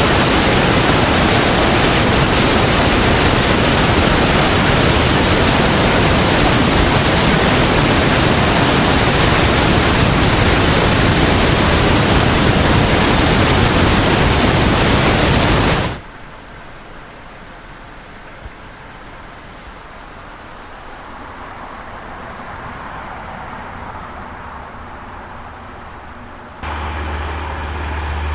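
Swollen floodwater rushing over a dam spillway: a loud, steady rush that cuts off suddenly about halfway through. After it, a much quieter background, and near the end a low steady hum starts.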